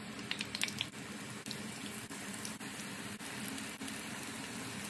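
Wontons deep-frying in hot oil in a pan: a steady sizzle, with a few crackles in the first second.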